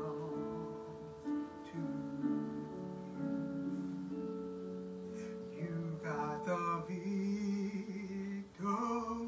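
A gospel song's guitar-led accompaniment with long held chords, and a woman singing over it in wordless phrases, most plainly about six seconds in and again near the end.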